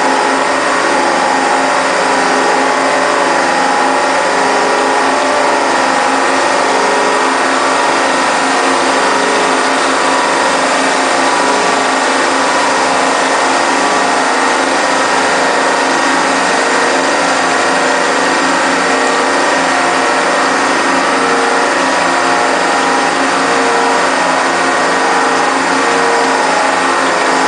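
Arter H40 rotary surface grinder running: a loud, steady mechanical whir with a constant thin high whine.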